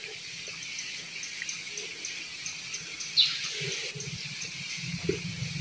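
Forest ambience: a steady hiss of running water, with a faint high chirp repeating about three times a second and a brief bird-like chirp about three seconds in.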